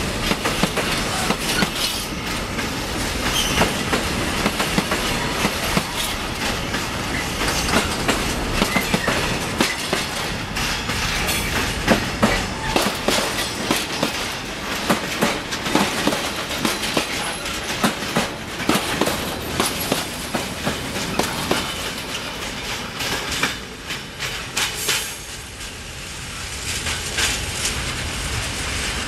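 Freight train wagons, covered vans and tank wagons, rolling past close by, their wheels clattering over the rail joints in a dense run of clicks and knocks. The clatter dips briefly a few seconds before the end, then picks up again.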